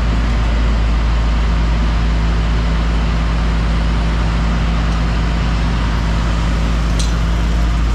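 New Holland CX5090 combine harvester's engine running steadily with a deep, even drone while the corn header is being raised. A short click about seven seconds in.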